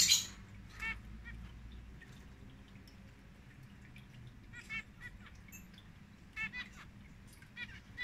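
Small caged finches giving short nasal, honk-like call notes: one about a second in, then pairs of calls near the middle and later, and another near the end. A brief loud noisy burst comes right at the start, over a faint steady low hum.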